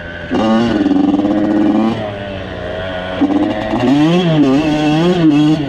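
Two-stroke off-road engine under way, revving with the throttle: a high held rev for about a second and a half, a drop to a lower pitch about two seconds in, then several quick rises and falls in pitch toward the end.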